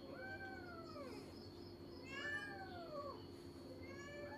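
A cat meowing three times, each a drawn-out call of about a second that rises and then falls in pitch, faint.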